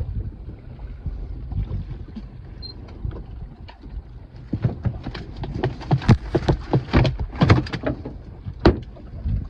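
Walleye slapping and knocking against the walls of a plastic cooler as one is put in among the others, a quick irregular flurry of hard slaps starting about halfway through, over a steady low rumble.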